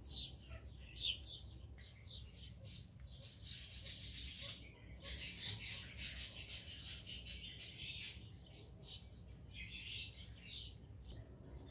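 Small birds chirping repeatedly in short calls, over a faint steady hum.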